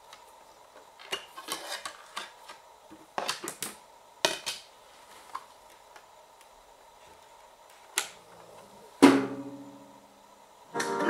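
Plastic clicks and knocks as the hinged CD lid of a Grundig CCD 5690 clock radio is closed and the unit is handled, then one loud thump about nine seconds in. Near the end FM radio music starts from its small speakers.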